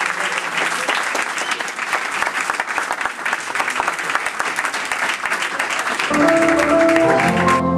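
Audience applauding steadily. About six seconds in, tango music starts, with instrument notes coming in over the clapping, and the applause dies away just before the end.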